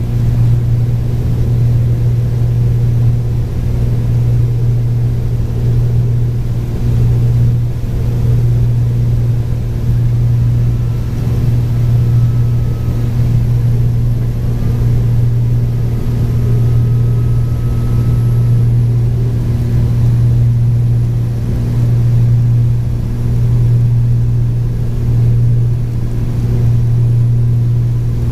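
Cape Air Cessna 402's twin piston engines droning steadily at approach power, heard from inside the cockpit, the level swelling and easing gently. A faint thin whistle comes and goes near the middle.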